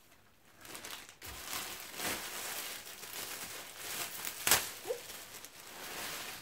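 Clear plastic garment packaging crinkling and rustling as it is handled and opened. It starts about half a second in, has one sharp, louder crackle about two-thirds of the way through, and stops just before the end.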